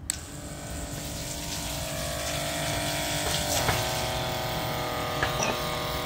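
Small electric water pump switched on and running steadily, pumping feedwater from a bucket into a steam boiler. It starts abruptly, a motor hum with several steady tones over a watery hiss.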